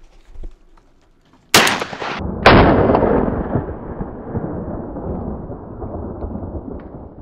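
Two loud shotgun shots about a second apart, fired at an incoming duck over the decoys. They are followed by a long rumbling noise that fades slowly.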